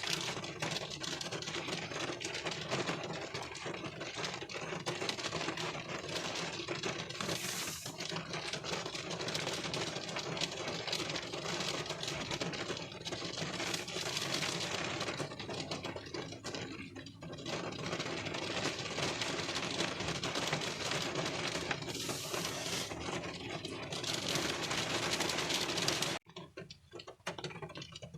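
Rain pattering densely and steadily on a car windshield, heard from inside the car. About 26 seconds in it drops abruptly to a quieter, sparser patter.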